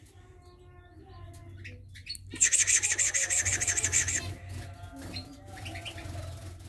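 Soft, short peeping calls from a nest of king quails. About two seconds in they are broken by a loud, rapid buzzing trill that lasts nearly two seconds, and then the soft peeping goes on.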